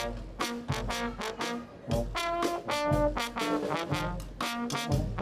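Brass band music in a jazz style, with trombone and trumpet playing a tune of short notes.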